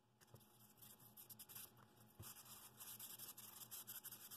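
Faint, irregular rustling and rubbing of a hand smoothing a paper pattern down onto a painter's-tape-covered wood blank.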